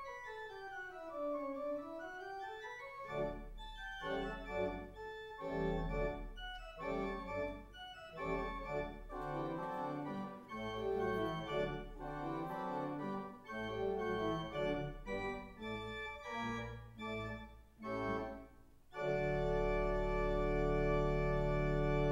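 Church organ playing: a quick run of notes falling and then rising in the first few seconds, then moving chords over a bass line, settling about three seconds from the end into a long held full chord with deep bass.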